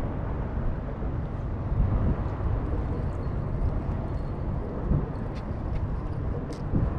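Wind buffeting the microphone, a steady low rumble with gusts rising and falling, and a few faint ticks high above it.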